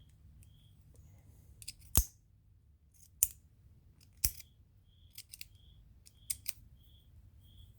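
Titanium EDC pen's mechanism being worked by hand: three sharp metallic clicks about a second apart, then a few quieter quick double clicks.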